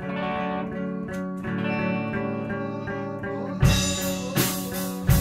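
Music: guitar playing sustained chords, with drum hits coming in loudly a little past halfway.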